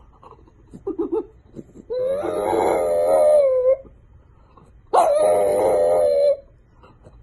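French bulldog howling: two long, slightly wavering howls, the first about two seconds in and the second about five seconds in, after a few short whimpers about a second in.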